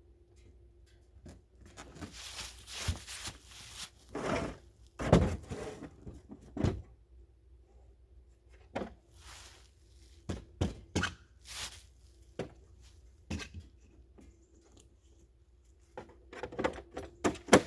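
Handling noises while a chainsaw is filled with gas and bar oil: irregular knocks, clicks and short scrapes of caps and containers against the saw, with the loudest knocks about five and seven seconds in.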